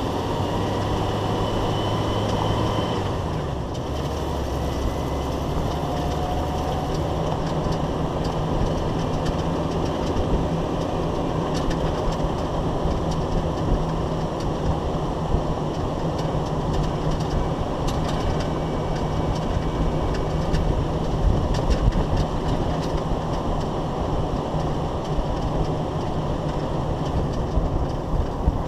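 Underbody driving noise of a Jeep Wrangler YJ heard at its Corporate 14-bolt rear axle: steady tyre and road noise over a low drivetrain drone that shifts in pitch about three seconds in, with a few sharp clicks and rattles.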